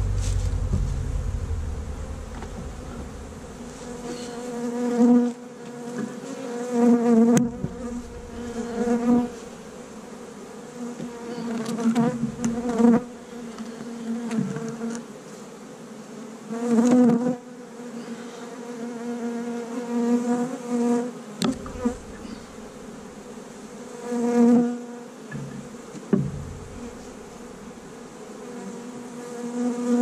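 Honey bees buzzing around the microphone, the hum swelling and fading over and over as bees fly close past. A few sharp knocks sound in between.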